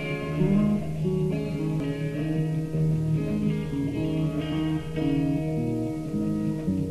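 Instrumental music: electric guitar and bass guitar noodling freely over looped percussion, the guitar playing a run of changing notes.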